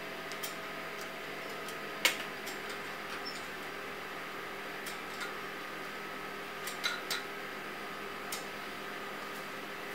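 Steady electrical hum of studio equipment with a few sharp clicks, the loudest about two seconds in and a pair about seven seconds in, as the steel blowpipe sits in the fluted mold.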